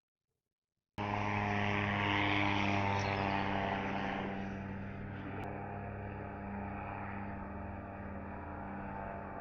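Small quadcopter drone's propellers buzzing steadily at a hover, cutting in suddenly about a second in and easing a little after a few seconds.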